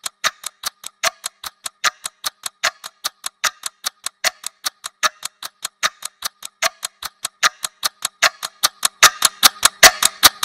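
Computer keyboard keys clicking in a steady run, about five keystrokes a second, with a few louder, closer-spaced keystrokes near the end.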